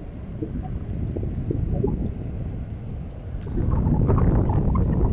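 Wind buffeting the microphone: a low, rumbling noise that grows louder about halfway through.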